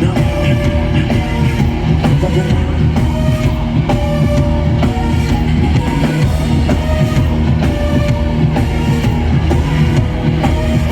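Loud live band music through a PA system: a drum kit keeping a steady beat over bass and guitar, an instrumental stretch of the song with no singing.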